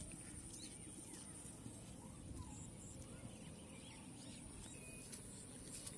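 Faint, scattered bird chirps over a low, steady background rumble in an open field.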